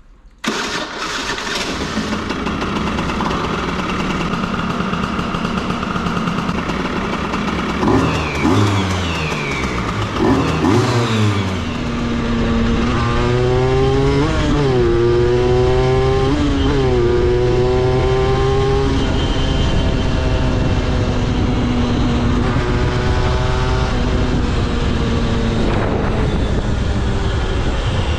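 Aprilia RS50's 50cc two-stroke single running while it warms up from a cold start, blipped twice with the revs falling back. After a cut, the bike is ridden: the engine pitch climbs and drops sharply twice as it shifts up through the gears, then holds steadier.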